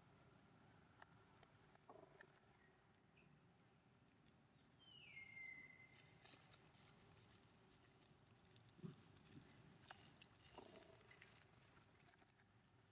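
Near silence with faint rustling and light taps, and one short falling chirp about five seconds in.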